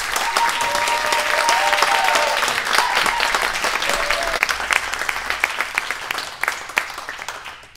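Audience applauding at the end of a told story. The clapping swells quickly, holds for several seconds, then thins out and fades near the end.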